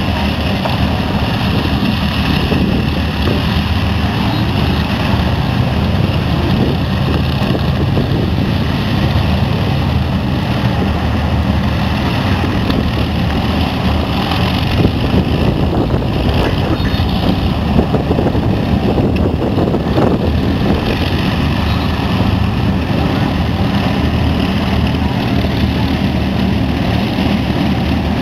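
Avro Lancaster bomber taxiing on its four Merlin V12 engines, running together at taxiing power in a steady, loud, deep drone.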